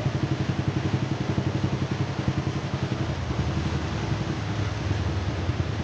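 Small engine running steadily near idle, with a fast even pulse; its pitch drops slightly about three seconds in.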